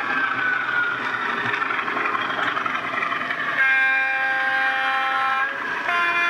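Loksound 3.5 sound decoder in a model Class 37 diesel, playing its engine running sound through the loco's speaker. About three and a half seconds in it sounds a two-tone horn: one steady note for about two seconds, then a second note of a different pitch near the end.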